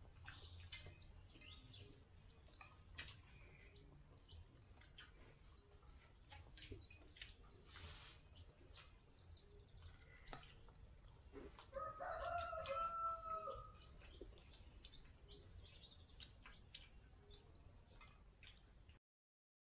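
A rooster crows once, a call about two seconds long that drops in pitch at the end, about twelve seconds in. Around it are faint clinks of spoons and plates as people eat.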